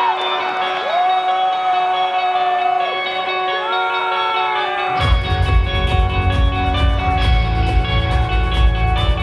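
Live rock band playing. Electric guitars open with sustained, bending and gliding notes over no bass, then about five seconds in the drums and bass come in and the full band plays together.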